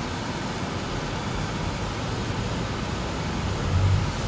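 Steady car-cabin noise: a low engine hum under an even hiss, with the low rumble swelling briefly near the end.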